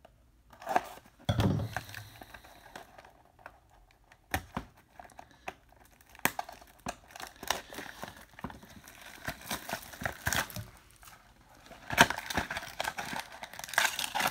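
Plastic shrink wrap being torn and peeled off a small cardboard trading-card box, crinkling and crackling irregularly, busiest near the end. A soft bump about a second and a half in as the box is handled.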